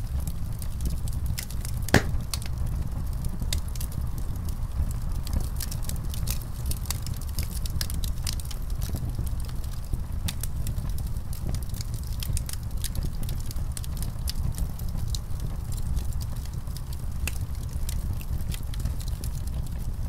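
Fire crackling: irregular sharp pops and snaps over a steady low rumble, with one louder pop about two seconds in.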